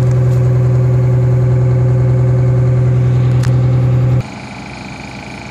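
1988 Crown Coach school bus's diesel engine idling, heard close at the tailpipe: a loud, steady low drone that drops suddenly to a much quieter level about four seconds in.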